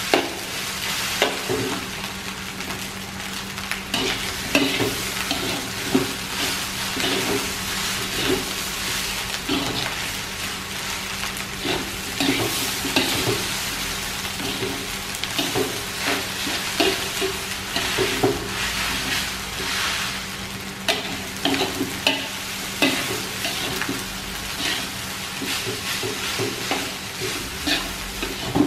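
Shrimp fried rice sizzling in a wok while a metal spatula stirs and scrapes it, the steady sizzle broken by irregular scraping knocks of the spatula against the pan.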